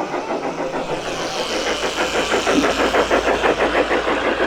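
A small working model machine running with a fast, even beat, getting louder about a second in.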